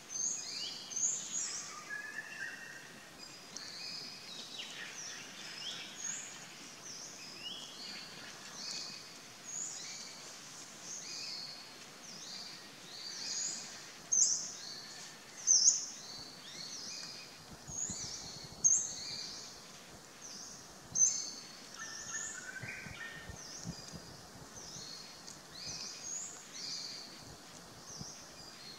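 Wild birds chirping and calling over a steady outdoor hiss: many short, high notes throughout, a few of them much louder in the middle stretch.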